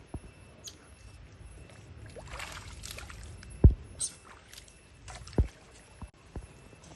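Water splashing and sloshing as monkeys bathe in a pool, broken by a few sharp thumps; the loudest comes a little past halfway.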